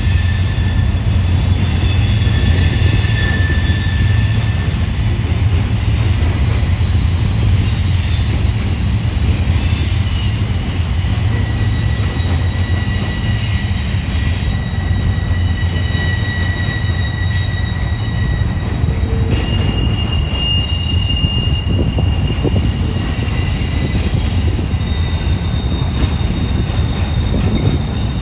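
Long double-stack intermodal freight train rolling past, a steady low rumble with high-pitched wheel squeal, several thin squealing tones that come and go.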